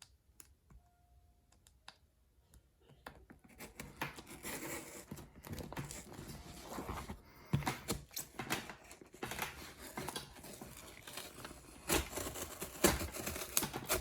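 A shipping package being torn and cut open by hand: after a quiet start, a run of tearing, scraping and crinkling with sharp clicks.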